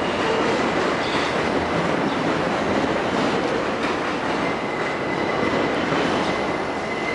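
R160A subway train running through the station, a loud steady rumble of steel wheels on rail. A faint, thin, high steady squeal from the wheels comes in about halfway through.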